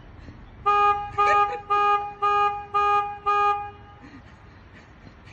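A horn honking six times in quick succession, about two blasts a second. Each blast is a steady, even-pitched tone.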